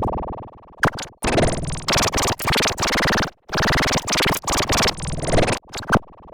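A logo intro's audio run through effects, heard as harsh, distorted noise. It comes in choppy blocks that cut out abruptly several times, with a sweeping effect in the middle.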